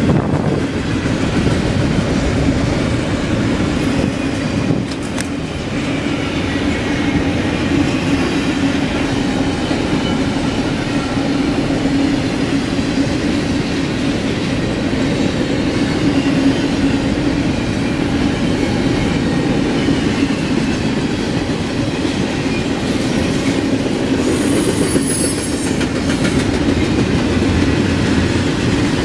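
BNSF double-stack container freight train rolling steadily past on its rails.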